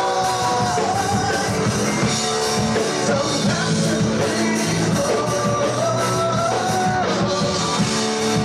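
Rock band playing live, with a lead singer singing over electric guitars, bass guitar, keyboard and drums.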